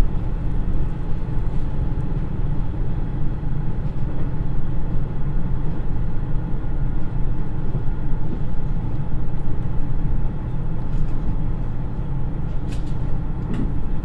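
Inside a KiHa 110 diesel railcar under way: the Niigata DMF13HZA turbocharged diesel engine droning steadily under the constant rumble of wheels on rail, with a couple of sharp clicks near the end.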